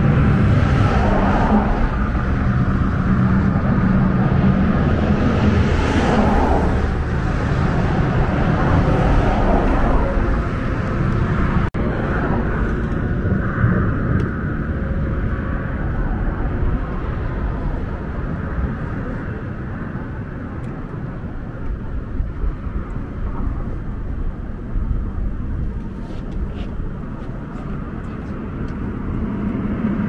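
Steady rumble of road traffic crossing the bridge, with a swell about six seconds in as a vehicle passes. The sound breaks off briefly about twelve seconds in, then continues somewhat lower.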